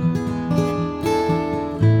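Background music played on acoustic guitar, plucked and strummed notes.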